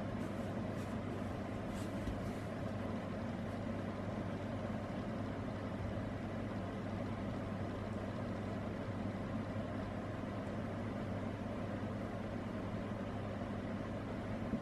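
A steady low hum, strongest in the bass, unchanging throughout.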